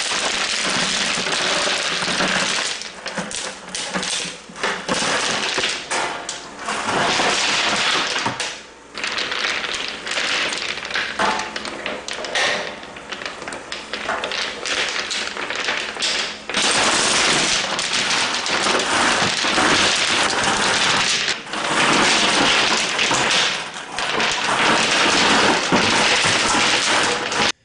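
Smooth river-washed stones poured from a plastic bucket onto a bed of smaller rock, a steady rattling clatter of stone on stone broken by a few short pauses.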